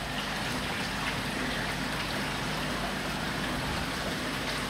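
Steady splashing and trickling of water in an indoor koi fry tank, with a low steady hum underneath.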